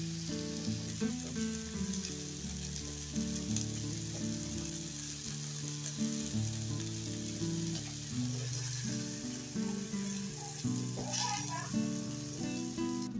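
Food sizzling steadily as it fries in hot oil, with a brief louder stir or scrape of the pan about eleven seconds in. A music track plays underneath.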